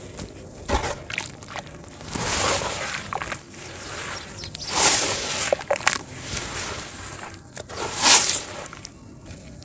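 A pure-sand block soaked in water, squeezed and crumbled by hand, with wet sand sloshing and pouring back into the tub. The squelching and sloshing comes in irregular swells, the biggest about five and eight seconds in.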